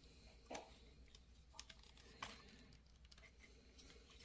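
Faint, scattered clicks and taps of hard plastic Transformers figure parts being handled and fitted, the clearest about half a second in and just past two seconds in.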